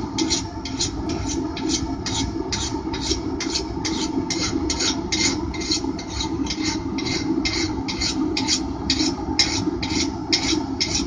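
A steel file drawn back and forth across a freshly quenched blade steel, about two rasping strokes a second, for the file test of whether the blade has hardened. The file skating without biting shows the steel is hard. A steady hum from the still-running forge goes on underneath.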